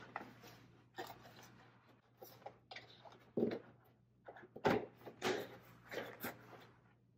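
Stiff lampshade panel and its wire ring being handled: scattered short rustles and light taps, a few to the second at most, with quiet gaps between.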